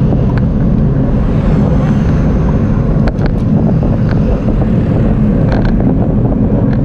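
Wind rushing over the microphone of a camera on a moving road bicycle, a loud steady rush, with a few brief sharp clicks about three seconds in and again near the end.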